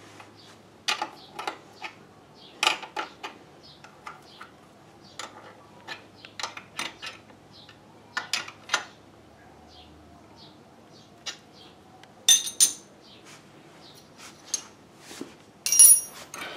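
Irregular metal clicks and clinks of a wrench working a nut on the pedal-rod bracket of a sewing machine's clutch motor. A louder, ringing clink of metal on metal comes about twelve seconds in and again near the end.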